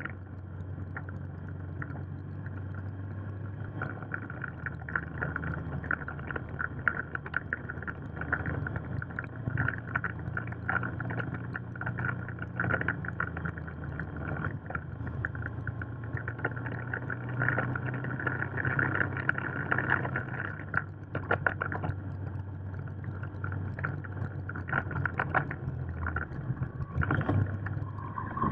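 Motorcycle engine running while riding, heard from the bike itself, its note changing pitch a few times, with gusty wind noise on the microphone.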